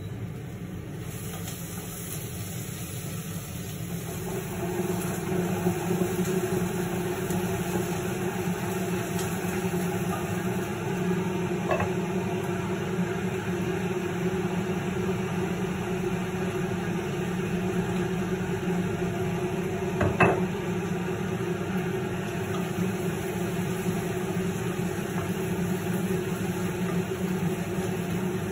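Steady hum of a kitchen range hood's extractor fan, which gets louder about four seconds in and then holds. A utensil clinks sharply against a cooking pot twice, the second time louder.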